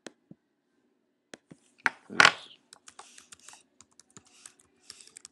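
Typing and clicking on a computer keyboard, in quick irregular clicks, with a louder knock about two seconds in.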